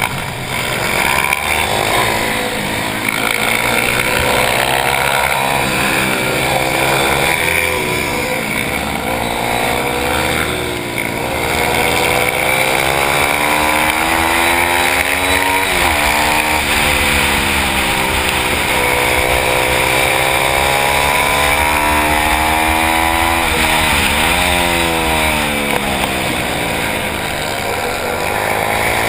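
Pit bike engine heard from onboard, revving up and down through the gears under racing. Its pitch climbs repeatedly and drops sharply, about halfway through and again about four-fifths of the way through, as the rider slows for corners.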